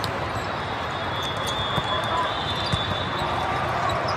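Volleyballs thumping a few times at irregular intervals, over steady crowd chatter in a busy multi-court tournament gym.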